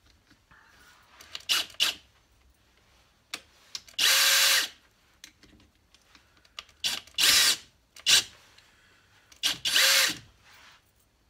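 Cordless drill clamped in a vise, run in about five short bursts, each spinning up and stopping within a second, while the chuck is held by hand to tighten it onto a buffing spindle.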